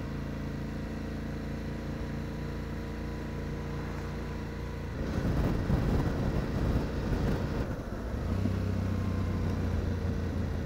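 Yamaha Ténéré 700's parallel-twin engine running steadily while being ridden. About halfway through, wind rush on the helmet microphone joins in and grows louder, and near the end the engine note shifts to a deeper steady hum.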